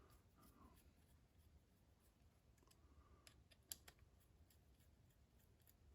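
Near silence with a few faint clicks and taps of small parts being handled, the sharpest a little under four seconds in.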